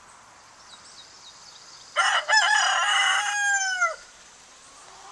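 Rooster crowing once: a loud cock-a-doodle-doo of about two seconds that starts about two seconds in and drops in pitch at the end.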